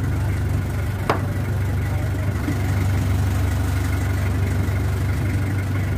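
Outrigger fishing boat's engine idling, a steady low drone, with one sharp knock about a second in.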